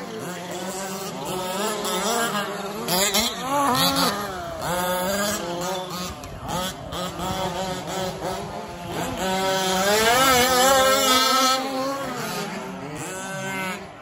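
Several remote-control 4WD off-road racing buggies running around a dirt track. Their motors give overlapping whines that keep rising and falling in pitch as the cars speed up and brake, loudest a little after the middle as a car passes close.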